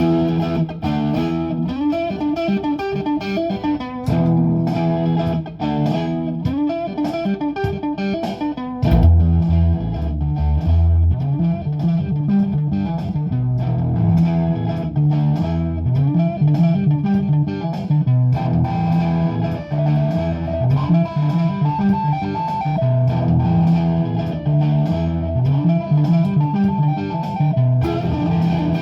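Improvised electric guitar music built up from live loops, with repeating picked phrases layered over each other. A low bass line comes in about nine seconds in.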